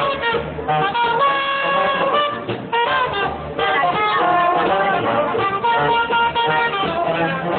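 Street brass band playing: trumpet and trombone carry a tune over low, pulsing bass notes.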